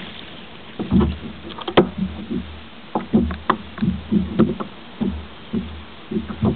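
Irregular hollow knocks and thumps on a plastic kayak hull, one to three a second, over a faint steady background noise.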